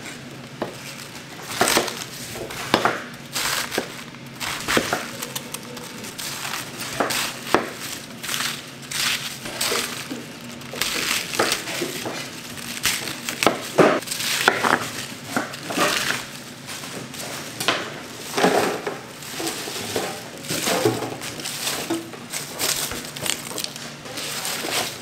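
Irregular knocks, clatter and crunching of food preparation in a commercial kitchen, with some louder strikes scattered through.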